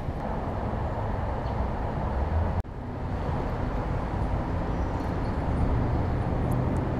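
Steady low rumbling outdoor city background noise. It is broken once by a brief dropout about two and a half seconds in.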